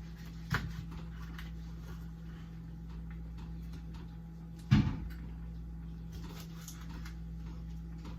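Two knocks, a light one about half a second in and a louder one near the five-second mark, over a steady low hum.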